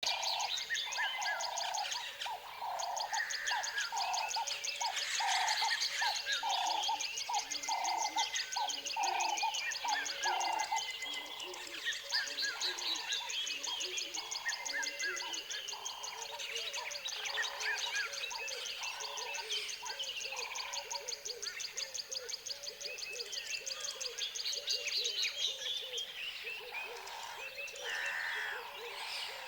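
Tropical forest ambience: many birds chirping and calling over a fast pulsing high insect buzz, with a low call repeated about one and a half times a second through the first half, fading out past the middle.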